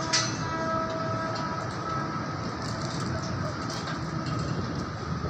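Construction machinery running with a steady rumble. A sharp metal clank comes just after the start, followed by faint steady squealing tones.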